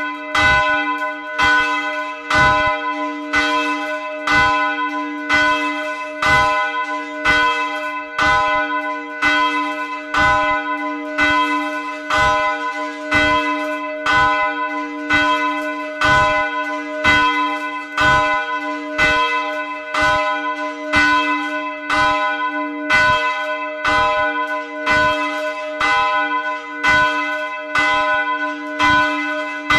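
Swinging church bell ringing, its clapper striking about once a second, each stroke ringing on over the last; heard loud and close from inside the belfry.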